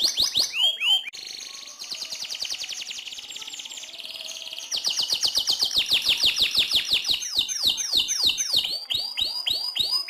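Domestic canary singing a long rolling song: rapid trills of fast-repeated high notes, the phrase changing about a second in and again near five seconds. It ends in a run of quick downward-swooping notes.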